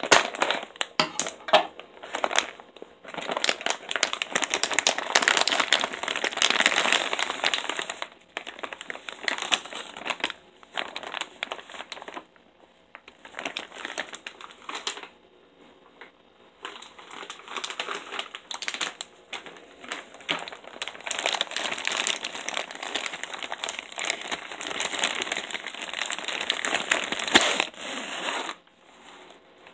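Foil packaging pouch and clear plastic bag crinkling and rustling as they are handled and opened, in irregular bursts with a few brief lulls midway.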